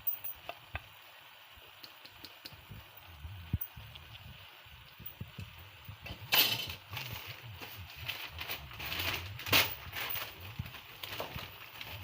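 Scattered clinks of a pot and lid and rustling of newspaper as a pot of rice is covered for steaming (dum), with two louder rustling bursts about six and nine and a half seconds in.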